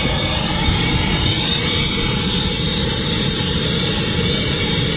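Hose-fed brazing torch burning with a steady hiss, its flame heating a copper line-set joint on an air conditioner's brass service valve for brazing.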